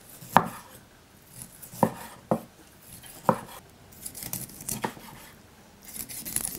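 Chef's knife cutting through cooked steak and knocking against a wooden cutting board, about five separate sharp knocks at an uneven pace.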